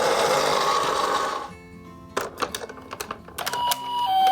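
Toy ambulances whirring for about a second and a half, then a few light clicks and knocks. Near the end a toy ambulance's electronic two-tone siren starts, alternating between a high note and a low note.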